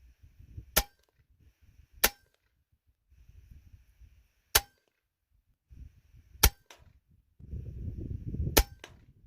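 Hatsan Nova .177 pre-charged pneumatic air rifle firing five sharp shots, one to two and a half seconds apart.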